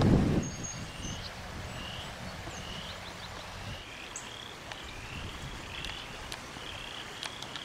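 Outdoor wildlife ambience: short high chirping calls repeat about once or twice a second. Wind rumble on the microphone dies away in the first half second.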